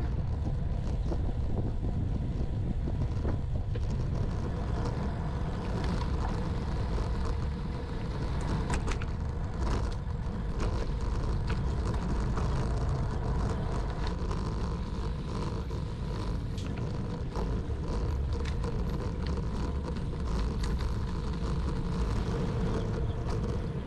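Wind buffeting the microphone of a camera riding on a bicycle, a steady low rumble, mixed with tyre noise and frequent rattling clicks from the bike over rough concrete and dirt paths.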